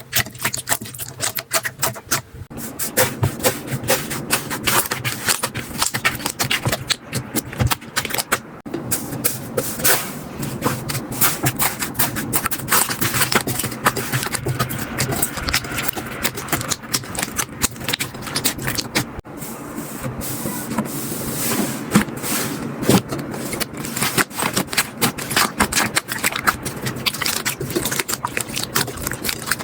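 Slime being squeezed, poked and stretched by hand: a dense, irregular run of sticky clicks and pops.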